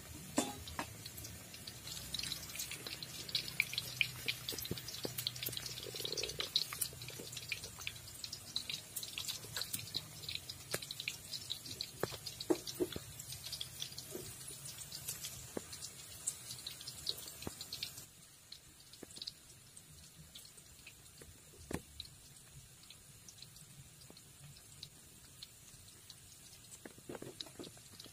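Hot oil crackling and spitting as flour-battered mushroom pieces deep-fry in a wok, a dense run of rapid ticks. About two-thirds of the way through it drops away sharply, leaving a faint background with scattered soft clicks.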